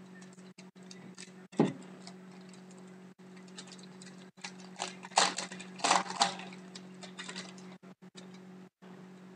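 Foil hockey card pack being torn open and the cards pulled out and handled: crinkling and crackling of the wrapper with card clicks, loudest about a second and a half in and again around five to six seconds in, over a steady low electrical hum.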